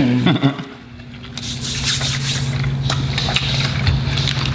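Close-up chewing and wet mouth clicks of someone eating a brisket burger with jalapeño slaw, over one long low closed-mouth 'mmm' hum of enjoyment.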